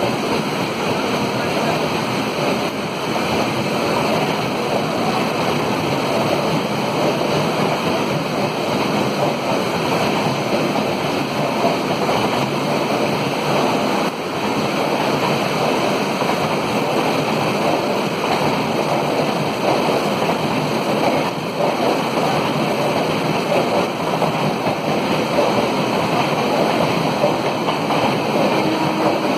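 Steady rush of heavy rain pouring onto the tracks and platform roof, mixed with the running noise of a long passenger train passing at speed.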